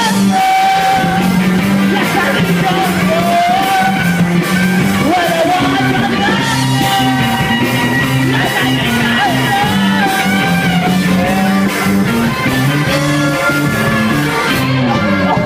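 Live rock band playing: electric guitars under a lead vocal singing into a microphone.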